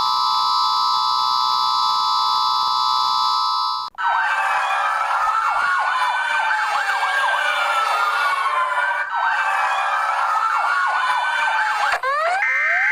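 Electronic emergency alert tones: a steady chord of held alert tones cuts off about four seconds in. A siren then wails slowly up and down, and near the end a fast repeating rising-sweep alarm starts.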